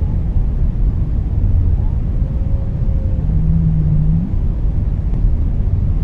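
Whale calls over a steady deep rumble of water. A faint higher call comes about two seconds in, and a low moan follows a little past three seconds, lasting about a second and rising slightly at its end.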